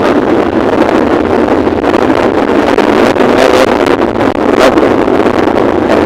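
Steady, loud wind rushing over the microphone of a helmet-mounted phone on a moving motorcycle, with brief gusts.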